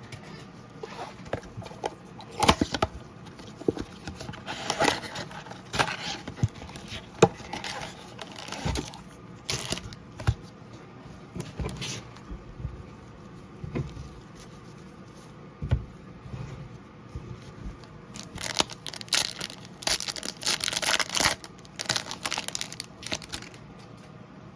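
Trading-card pack wrappers being torn open and crinkled, with cards handled in between: irregular bursts of tearing and rustling, coming thickest near the end.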